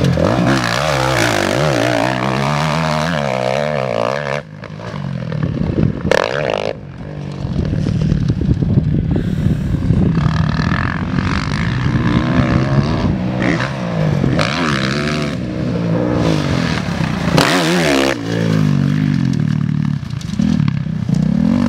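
Motocross bike engine revving hard on a dirt track, its pitch climbing and falling as the rider works the throttle and shifts gears, with the throttle chopped briefly a few times.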